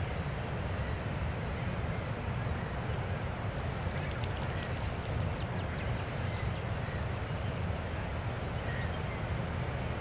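Steady low rumble, with faint duck quacks about four to six seconds in.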